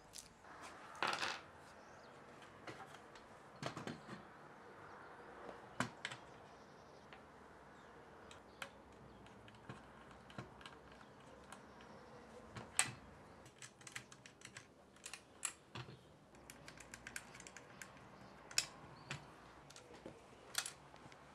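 Irregular small clicks and taps of hands handling and fitting small glide-adjuster parts onto an aluminium saw base on its track rail, with a few sharper clicks.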